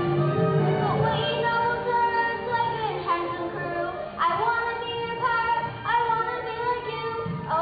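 Children singing a song from a school musical over instrumental accompaniment, the voices holding notes and sliding between pitches.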